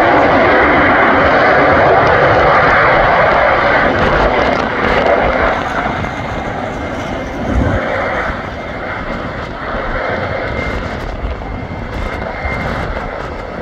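Airbus A330's jet engines on the landing roll: a broad roar that drops off about five seconds in, leaving a quieter steady engine noise with a faint high whine near the end.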